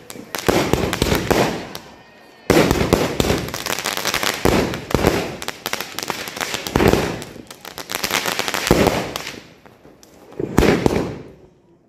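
Multi-shot aerial fireworks cake firing: shells burst overhead one after another, each followed by dense crackling. There is a short lull about two seconds in, then a loud burst restarts the volley.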